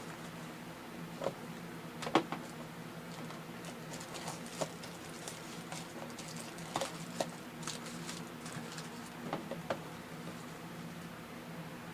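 Trading cards and their packaging being handled: irregular soft clicks, taps and light scrapes, over a low steady hum.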